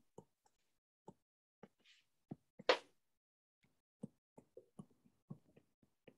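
Faint, scattered taps and clicks of a stylus on a tablet screen during drawing, about a dozen of them at irregular intervals, with one short louder noise about two and a half seconds in.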